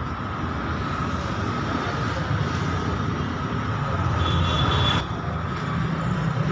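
Steady rumble of vehicle noise with a faint high tone over it; it dips briefly about five seconds in.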